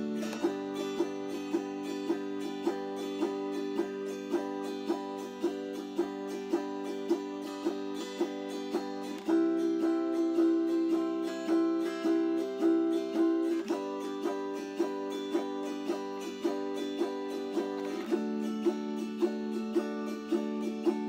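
Autoharp strummed in a steady, even rhythm of chords, with no singing. The chord changes about nine seconds in, and twice more later.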